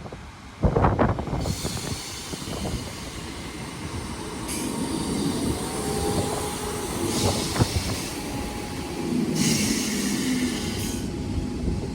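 Class 319 electric multiple unit at the station platform, slowing and standing, with rail and brake noise, a faint squeal and three spells of hissing air.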